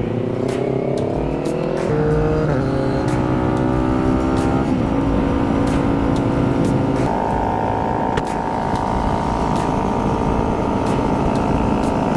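Motorcycle engine accelerating hard, its pitch rising through the gears with upshifts about two and about five seconds in, then holding a steady higher pitch at cruising speed.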